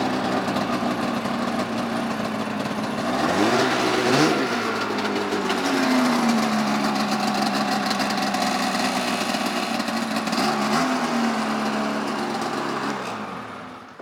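2002 Polaris Edge X 600 snowmobile's two-stroke twin engine idling, blipped up in revs about three and a half seconds in and again about ten and a half seconds in, each time settling back to idle. The sound fades out near the end.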